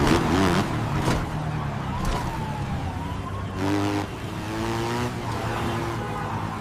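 AI-generated sound of a dirt bike engine running through city traffic, its pitch shifting up and down as it revs, over a steady low traffic hum. A faint wailing tone rises and falls about two seconds in.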